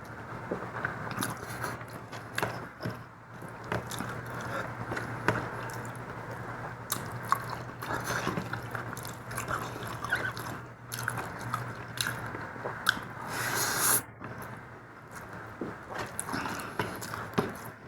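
Close-miked chewing and biting of mutton and rice, with many short wet mouth clicks and smacks.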